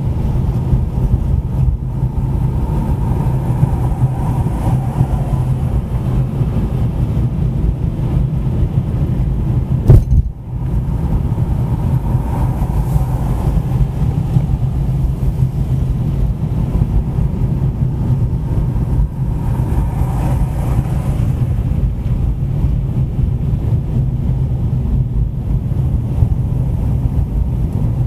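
Car driving on a city road, with the engine and tyres making a steady low rumble. There is one sharp thump about ten seconds in.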